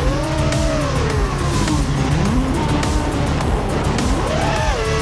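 Motors and propellers of an iFlight Nazgul Evoque FPV quadcopter whining in flight, the pitch sinking as the throttle comes off, then rising sharply about four seconds in. Music with a steady beat plays underneath.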